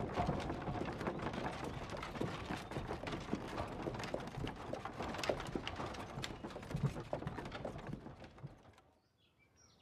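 Horse hooves clopping on a dirt road with a horse-drawn wooden-wheeled carriage rattling and knocking along, an uneven patter of knocks that fades away near the end.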